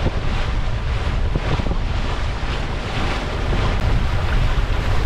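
Strong wind buffeting the microphone as a heavy, steady rumble, over the rush and splash of water along a sailboat's hull as it sails upwind; the water noise swells in uneven surges.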